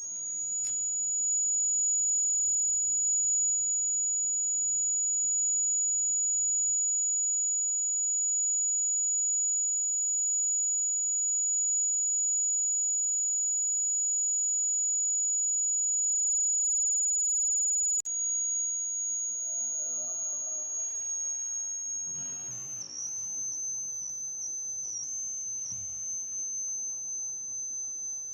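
Homemade breadboard fire-alarm circuit sounding its alarm: a continuous, shrill high-pitched tone. The tone drops slightly in pitch with a click partway through, and near the end it wavers unsteadily.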